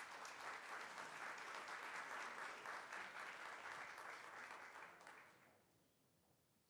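Audience applauding, a dense patter of many hands clapping that fades out about five seconds in.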